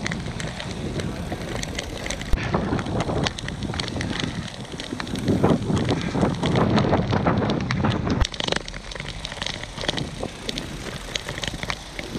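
Wind buffeting the microphone of a bike-mounted action camera while riding a road bike on a wet, muddy lane, with tyres hissing on the wet surface and the bike rattling over the rough road. Two sharp knocks stand out, about two seconds in and about eight seconds in.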